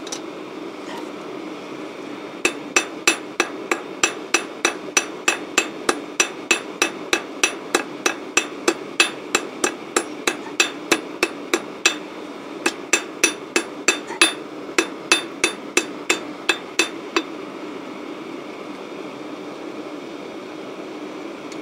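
Ball-pein hammer striking hot steel on a steel-block anvil, forging the bowl of a small spoon from a cut-off spanner: sharp ringing blows at about two a second, with a couple of brief pauses, stopping about 17 seconds in. A steady low hum runs underneath.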